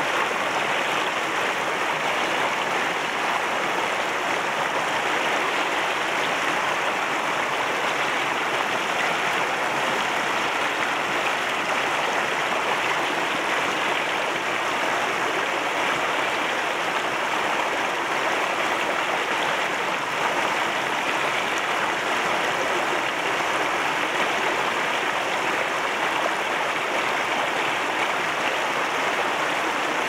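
Shallow mountain stream running fast over a bedrock slab, a steady rush of white water.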